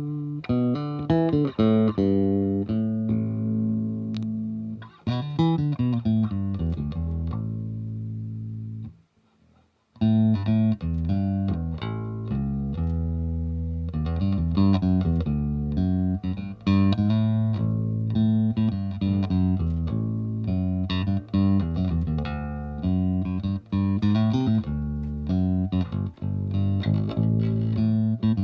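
Greco EB-50 electric bass guitar played solo: a run of plucked notes and phrases. About nine seconds in, a held note dies away to near silence for a moment before the playing starts again.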